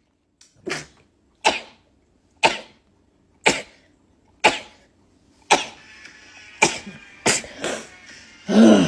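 A person sneezing in a rapid-fire fit, about ten sharp sneezes roughly one a second, coming faster near the end.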